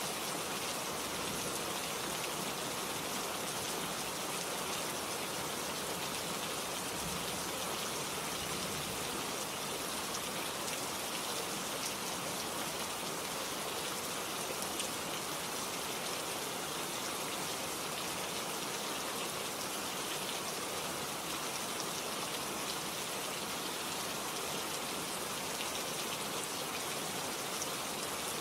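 Steady rain falling, with fine drop patter on a surface, continuous and even in level.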